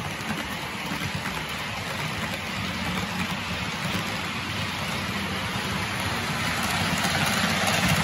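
OO gauge model trains running on the track: a steady rattling hiss of small wheels on rail over a low hum, growing louder near the end as another train approaches.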